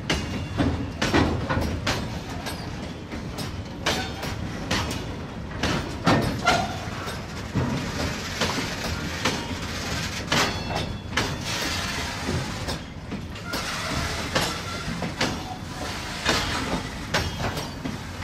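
Toy freight train wagons rolling along plastic track: a steady rattle broken by irregular clicks.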